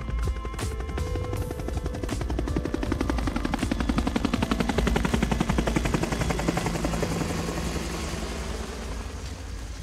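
Helicopter rotors chopping rapidly, growing louder about two seconds in and then slowly fading away, over background music.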